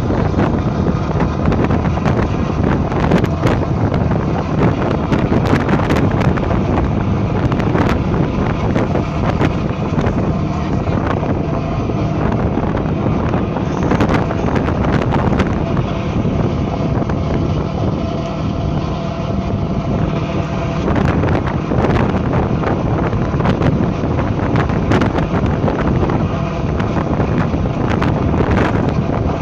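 Wind buffeting the microphone on the open deck of a moving tour boat, over the steady drone of the boat's engine.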